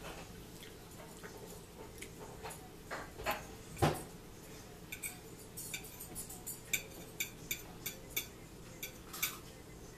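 Cutlery clicking and tapping against a plate during a meal: a few heavier knocks, then a run of short sharp clicks about two a second.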